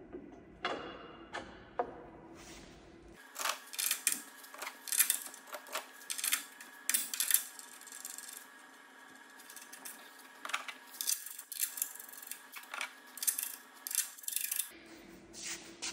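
Metal bolts and washers clinking and clicking against the hub of a ground-adjustable Catto propeller as the hub bolts are fitted and started by hand: a string of sharp, irregular clicks.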